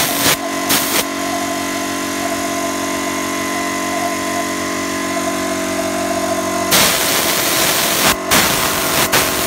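HVLP spray gun hissing in a few short bursts, over the steady hum of the air-supply motor. About seven seconds in, the hiss becomes loud and almost continuous, broken only by brief pauses.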